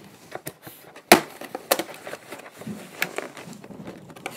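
Cutting and handling a toy's packaging fastenings inside a cardboard box: scattered sharp clicks and snips, the loudest about a second in.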